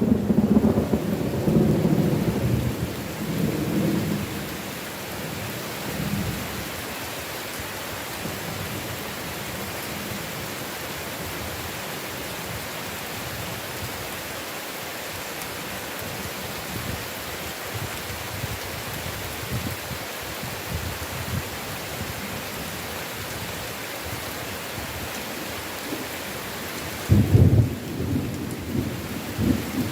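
Heavy rain falling steadily in a thunderstorm. Thunder rumbles at the start and dies away over the first few seconds, and a new clap of thunder breaks in near the end.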